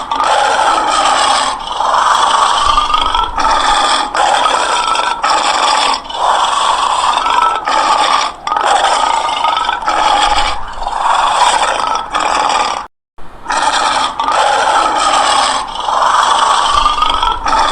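Lion growling and snarling in a long run of rough, raspy calls separated by brief gaps, with one short pause about three-quarters of the way through.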